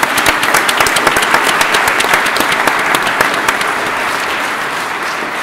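Audience applauding, a dense clatter of many hands clapping that slowly fades toward the end.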